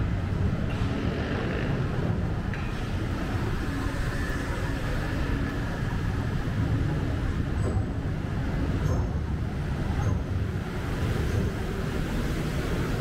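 Steady street traffic: vehicles running and passing continuously along a busy city street.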